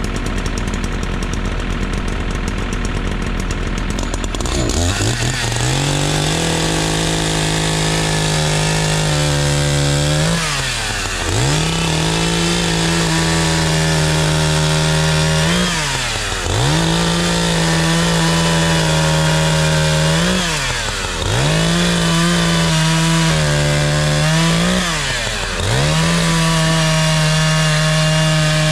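Echo CS-590 Timberwolf two-stroke chainsaw at high revs, bucking logs into firewood. About four and a half seconds in it revs up. It then holds a steady high pitch and drops briefly before revving back up about every five seconds, five times in all.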